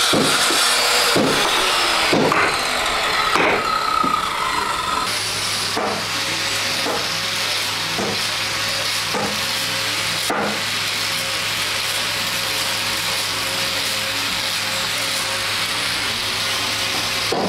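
Hammer striking a chisel into a wooden plank: sharp knocks about once a second. After about five seconds the sound changes to a steady low hum with regular strokes about once a second.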